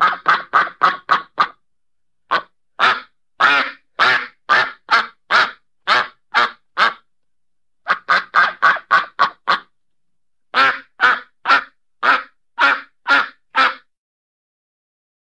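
Duck quacking in runs: quick bursts of about seven rapid quacks in a second and a half alternate with slower, evenly spaced series of quacks about two a second, with short silent gaps between runs.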